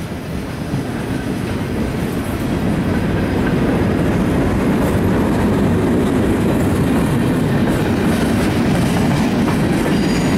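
A CSX freight train passing close by: diesel locomotives followed by freight cars rolling on the rails. The rumble builds over the first three seconds, then holds steady.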